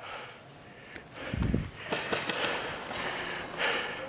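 Airsoft guns firing: a few sharp pops about two seconds in, with a dull low thump just before them and rustling of movement throughout.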